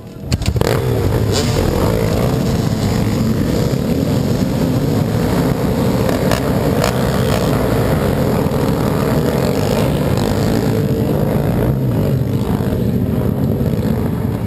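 Two-stroke 125 cc dirt bike engine (Husqvarna TE125) running hard under load, with wind noise. It comes in suddenly and loud about a third of a second in, then holds at that level, with a few sharp knocks along the way.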